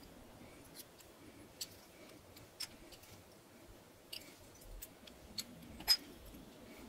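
Metal bottle caps set one at a time into a latex coaster mould: a string of light, irregular clicks and taps, the loudest near the end.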